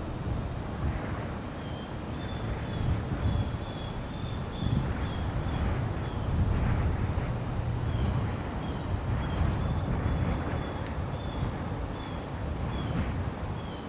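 Wind buffeting the microphone in a low, fluctuating rumble, with a small bird giving short, high chirps over and over at irregular intervals.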